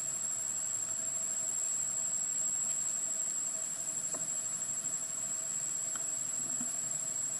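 Insects shrilling steadily at a high pitch, one unbroken tone.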